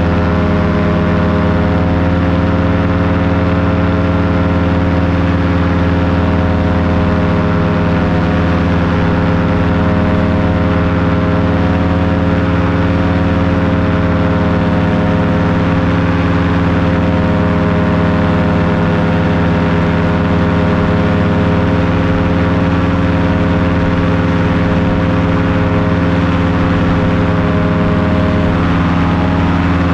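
An engine running at a constant speed: a steady, unchanging droning hum.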